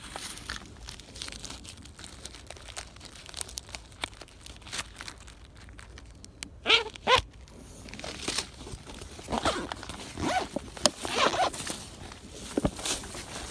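Footsteps and rustling through tall grass and weeds, with many short crackles of stems brushing clothing and the camera being handled. About seven seconds in come two short, loud pitched sounds in quick succession.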